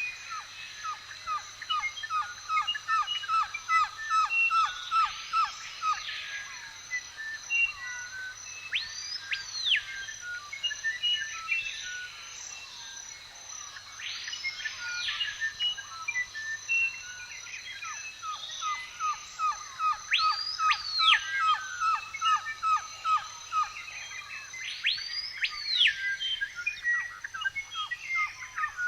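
Forest birdsong from several birds. A clear call that rises and falls comes back about every five seconds, over runs of quick, evenly spaced short notes and scattered chirps. A faint steady high tone sits underneath.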